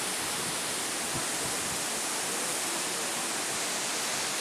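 Marmore Falls, a tall tiered waterfall, giving a steady, even rush of falling water.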